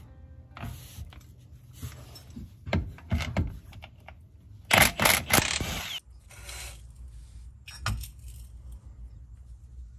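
Cordless 24-volt impact wrench briefly hammering on a 17 mm driveshaft-to-differential flange bolt, with a combination wrench backing the nut. Metal clinks of wrench and socket come about three seconds in, and the loudest burst of rattling lasts about a second, around five seconds in.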